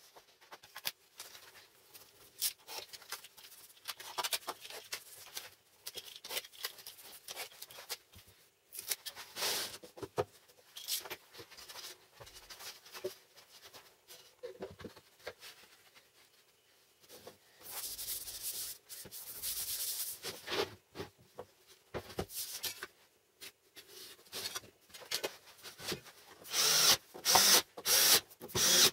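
Hands rubbing and handling a white MDF board, with small scrapes and taps. Near the end a cordless drill/driver drives screws into the board in a series of short, loud bursts.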